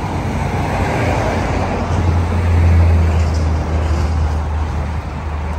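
Road traffic noise with a low motor-vehicle engine drone that swells about halfway through and then eases.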